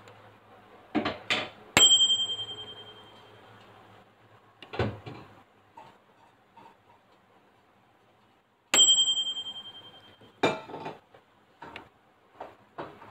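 Microwave oven timer dinging twice, about seven seconds apart: each a single bright bell-like ding that rings down over a second or two. Short knocks and clicks fall around the dings.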